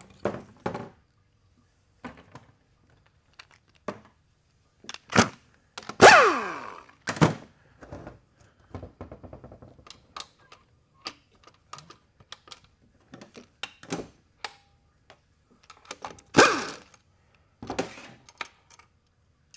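Scattered clicks and knocks of metal tools and transmission parts being handled on a steel workbench during work on an automatic transmission's valve body. A loud metal clang with ringing comes about six seconds in, and another loud knock comes around sixteen seconds in.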